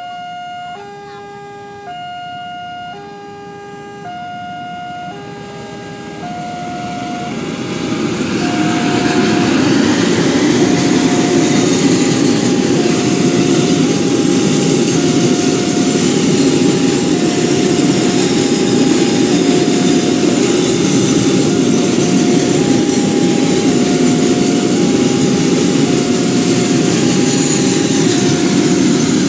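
Railway level-crossing alarm sounding a steady two-tone warning chime, switching note about once a second. From about seven seconds in, a container freight train passing close by builds into a loud, steady wheel-and-rail noise that dominates, with the alarm still heard over it.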